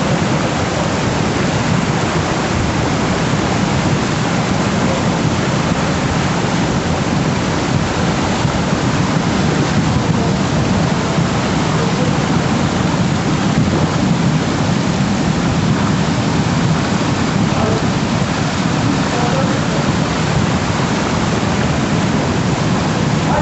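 Muddy floodwater rushing steadily across a road during a flash flood, mixed with rain, making a loud, even roar.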